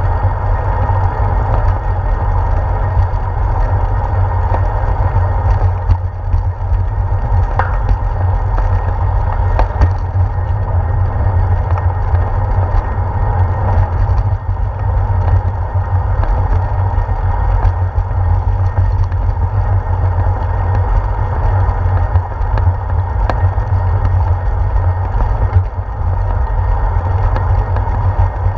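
Bicycle riding noise picked up by a handlebar-mounted GoPro rolling along a paved path: a loud, steady low rumble of wind and road vibration on the camera, with a few small knocks from bumps in the pavement.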